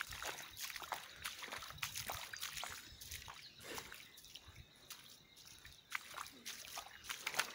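Shallow runoff floodwater trickling over a flooded dirt path, quiet, with scattered small irregular splashes and drips.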